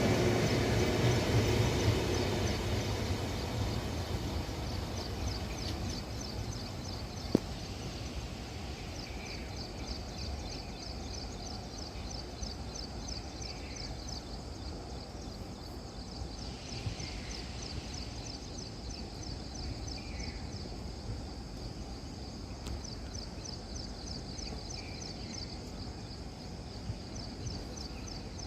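The passing train's rumble dies away over the first few seconds, leaving outdoor ambience: a steady, fast-pulsing insect chirr and a short falling bird call every few seconds, with a single click a few seconds in.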